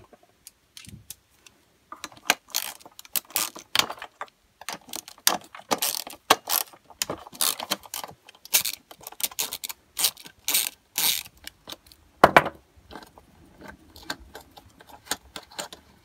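Small ratchet and 8 mm socket clicking in quick runs while undoing the carburettor mounting nuts on a Stihl BG86 leaf blower, with light metal clinks of the tool. One louder clatter comes about twelve seconds in.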